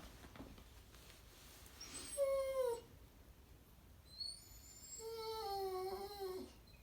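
A pet animal giving two drawn-out, pitched calls, a short one about two seconds in and a longer one about five seconds in that sinks a little in pitch as it ends.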